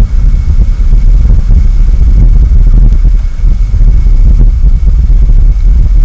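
Wind buffeting an outdoor microphone: a loud, wavering low rumble.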